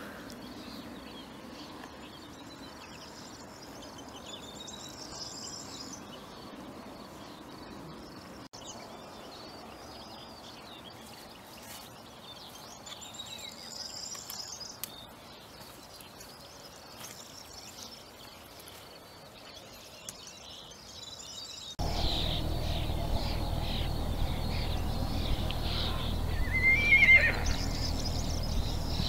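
Horse whinnying once, briefly, with a wavering pitch near the end, over birds singing faintly in the background. About three quarters of the way in the background gets louder, with a low steady noise added.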